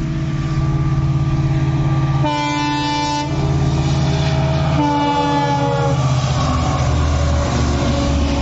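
WDP4D diesel locomotive approaching with its engine running, sounding two horn blasts of about a second each, the second sliding slightly down in pitch as it reaches the crossing. The coaches then rumble past.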